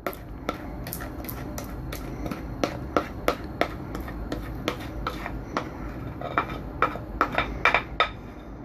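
Glass mixing bowl and silicone spatula knocking and scraping as thick bread batter is scraped out into a loaf tin: light irregular taps and clinks, two or three a second, over a low steady hum.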